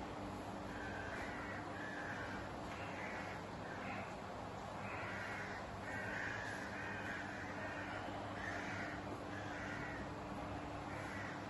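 Bird calling outside, a run of short harsh calls about once a second, over a steady low hum.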